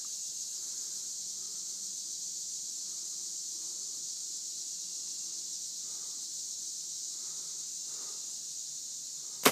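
Steady high-pitched insect chorus from summer woods, with one sharp snap at the very end as the compound bow is shot.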